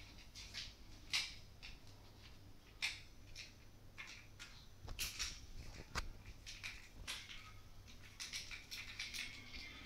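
Faint, irregular patter and scratching of a kitten's paws and claws skittering on a tiled floor as it runs and pounces, with a thump about six seconds in.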